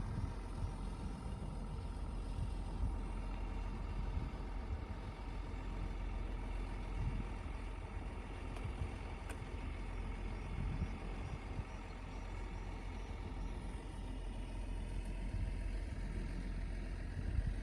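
Excavator's diesel engine running steadily with a low rumble.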